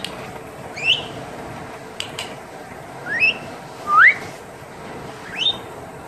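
Congo African grey parrot whistling: four short whistles, each sliding upward in pitch, spaced a second or two apart, the loudest about four seconds in. Two sharp clicks come about two seconds in.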